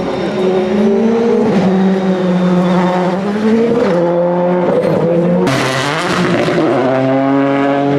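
Rally1 car's turbocharged four-cylinder engine running hard, its note rising and then dropping sharply as it changes gear. About five and a half seconds in a sudden rush of noise cuts in over it, and the engine note then climbs again.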